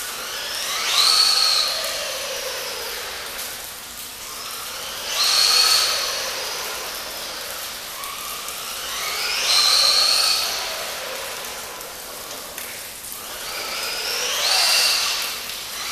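Brushless electric motor of an L212 PRO RC truck whining under throttle in four bursts, about one every four to five seconds. Each burst is a high whine that climbs in pitch and then fades away.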